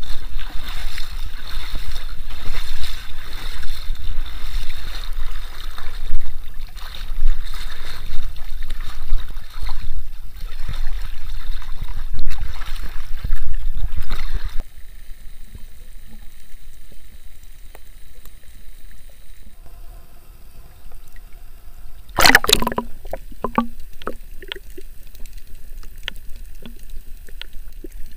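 Shallow seawater sloshing and splashing around a camera held at the surface. The sound drops suddenly to a quieter hiss with scattered small clicks about halfway through, and there is one brief loud splash later on.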